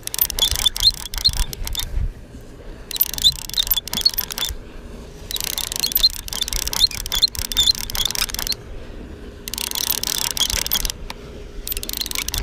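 Fishing reel being cranked in spurts: a whirring, clicking run of a second or a few seconds at a time, about five times, with short pauses between.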